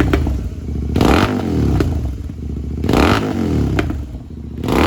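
Royal Enfield GT 650's parallel-twin engine revved in short throttle blips about two seconds apart through straight-through slip-on mufflers with the dB killers removed. Each rev rises and falls back to a lumpy idle, with sharp pops as the revs drop.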